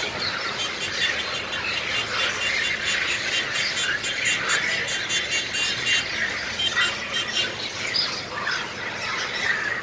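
Many long-tailed macaques squealing at once in a dense, continuous chorus of overlapping high calls, the noise of rival troops squabbling.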